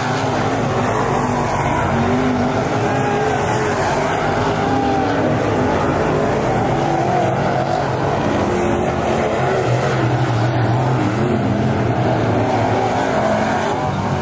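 IMCA Modified dirt-track race cars' V8 engines running at speed, their pitch wavering up and down as they go through the turns and past.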